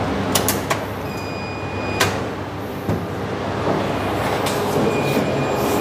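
A few sharp clicks and knocks from a treadmill's plug and wall switch being handled at the power socket, over a steady mechanical hum and hiss.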